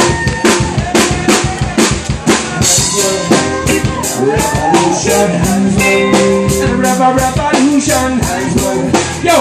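Live reggae band playing: drum kit hits loudest and dense throughout, with electric bass and electric guitars under them.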